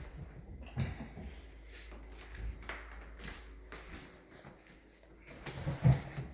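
Irregular knocks, clicks and scrapes of a stirrer in a plastic cup of water, baking soda and dish soap being mixed, loudest about a second in and again near the end.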